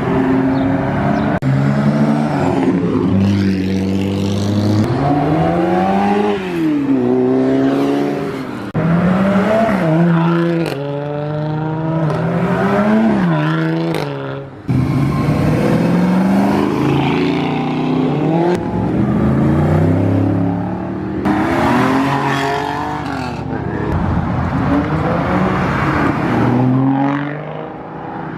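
Performance car engines accelerating hard as several cars drive off one after another, the pitch climbing with the revs and dropping at each upshift.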